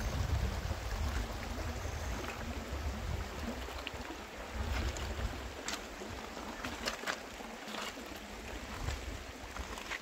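Shallow river water running over and between granite stones, a steady rush with scattered small splashes and clicks. A low rumble from wind on the microphone comes and goes, strongest near the start and about halfway through.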